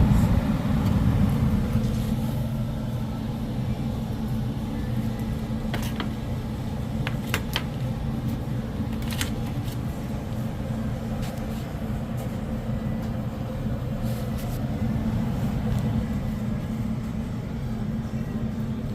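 Air-conditioning system running with a steady low hum, just restarted after its condensate float switch was tested. A few light clicks and taps come in the middle.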